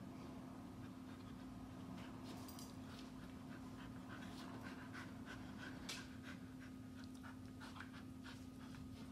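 A Samoyed panting with quick, short breaths, over a steady low hum.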